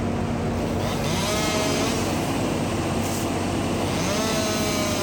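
Heavy machine engine running steadily while a saw revs up twice, once about a second in and again near the end, each time rising quickly to a held high whine.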